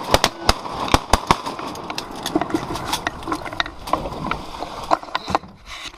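Dense, irregular clicking and crackling over a rustling hiss, as the dry leaves and twigs of the blind brush and scrape against the camera right at the microphone.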